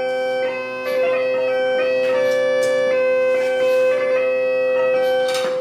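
Electronic bagpipe playing a tune: melody notes changing every fraction of a second over steady, unchanging drones.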